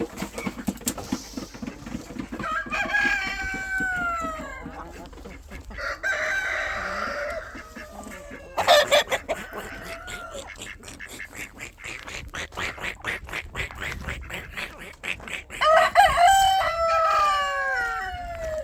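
Chickens: a rooster crows twice, once a few seconds in and again near the end. In between come clucking and a rapid run of short taps.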